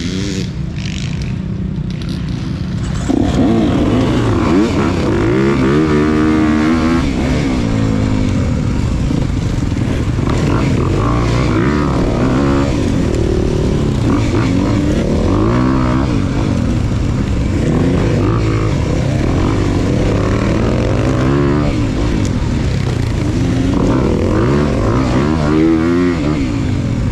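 Off-road motorcycle engine revving up and down through the gears, getting louder about three seconds in.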